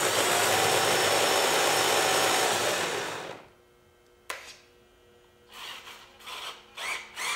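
Electric outboard motor on an RC truck-boat spinning its propeller in air under radio throttle, a steady whir that winds down about three seconds in. Then a single click, and near the end a run of short rising whirs, about three a second.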